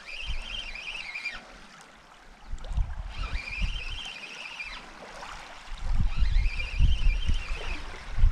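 Shimano Ultegra spinning reel being cranked in three short bouts as a hooked perch is pumped toward shore, each bout a wavering whirr from the reel. Wind buffets the microphone, more strongly in the second half.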